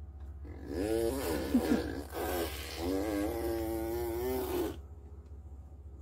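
A toddler imitating a string trimmer engine with his mouth: a pitched vocal motor noise in two stretches, the second held at a steady pitch. It stops about a second before the end.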